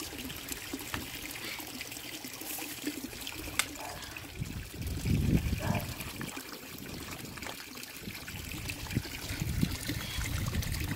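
Steady trickling of pond water, with scattered clicks and knocks as concrete paver blocks are set in place, and a louder low thump about five seconds in.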